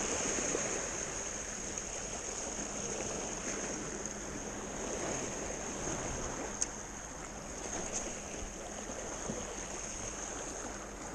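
Small waves washing and splashing against the boulders of a rock jetty, with a steady high hiss above it and a few faint clicks.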